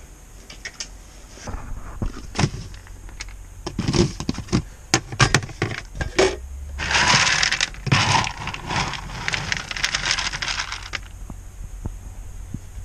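Dog food being dished out: a run of clicks and knocks as the container and bowl are handled, then dry kibble poured rattling into a bowl for about four seconds from around seven seconds in.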